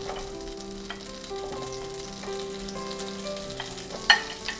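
Melted butter sizzling in a frying pan as chunks of red onion are tipped in from a bowl, with a few light clicks and a sharp clack about four seconds in.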